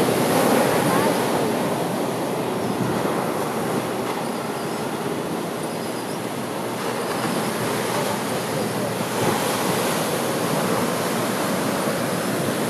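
Storm-swell surf breaking and washing ashore: a continuous rush of water that eases a little midway and builds again.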